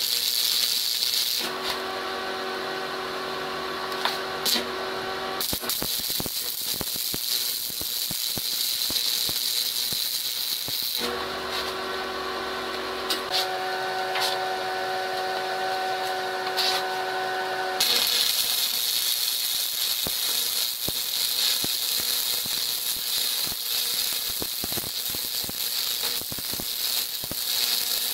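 Electric arc welding on steel square tubing: the arc's steady crackling hiss. It gives way twice for several seconds, about two seconds in and again near the middle, to a few steady tones.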